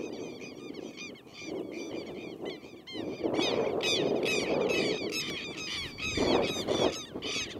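Many birds calling over and over in short, shrill, arching notes, several a second, with a low rushing noise swelling underneath from about three seconds in.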